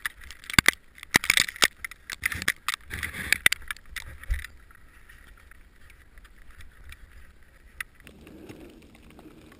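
A climber's gear and crampons knocking and scraping on snowy rock and ice: a quick run of sharp clicks over a hiss that stops about four and a half seconds in, leaving only a faint low hum.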